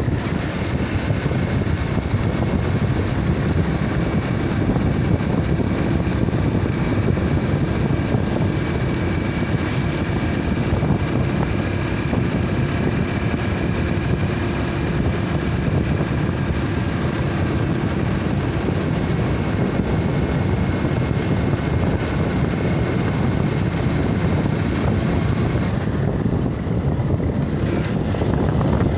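Motorcycle riding at steady speed: engine and road noise heard from the rider's seat, mixed with wind rushing over the microphone, with a faint steady engine whine above it.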